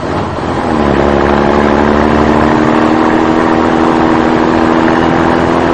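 A vehicle engine running: its pitch rises in the first second, then it holds a steady, even note.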